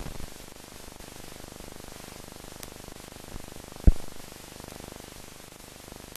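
Steady hiss and static of an old film soundtrack with no recorded sound, broken by a few low pops and one loud thump nearly four seconds in.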